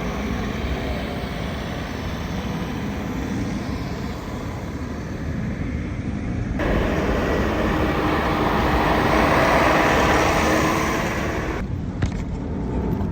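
Steady engine and vehicle running noise. About halfway through it swells into a louder rushing sound, which drops off abruptly near the end.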